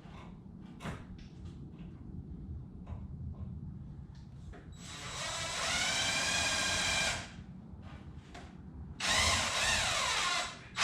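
Cordless drill-driver running in two bursts, driving screws into the wood: a whine of about two and a half seconds, then a shorter one of about a second and a half near the end. Light knocks of handling in between.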